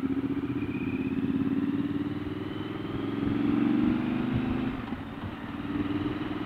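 Triumph Scrambler 1200's parallel-twin engine running under way, heard from the rider's seat. The engine note climbs over the first few seconds, then drops back about five seconds in and picks up again more quietly.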